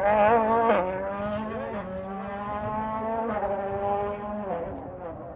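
World Rally Car's turbocharged four-cylinder engine under hard acceleration, its pitch climbing and dropping at several gear changes, loudest in the first second.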